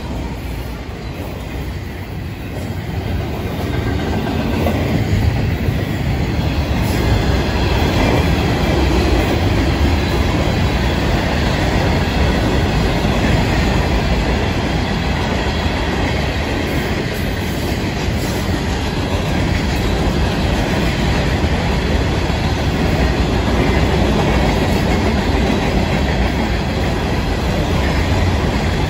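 Freight train cars rolling past close by: steady wheel-on-rail noise from autoracks and rock hopper cars, getting louder about four seconds in and then holding.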